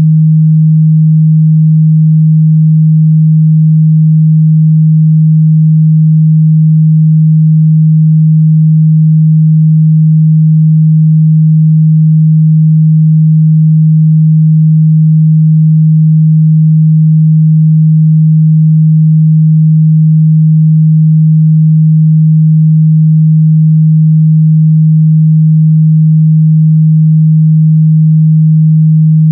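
A steady, continuous 157 Hz sine-wave test tone, a single pure low hum held at a constant loud level.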